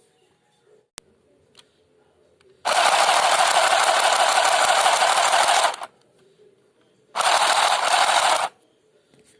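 Handheld sewing machine running in two bursts, the first about three seconds long and the second just over a second. There is a single sharp click about a second in.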